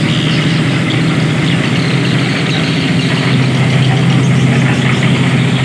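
Engine of a portable drum concrete mixer running steadily at a constant speed, a low hum under a rattling mechanical noise.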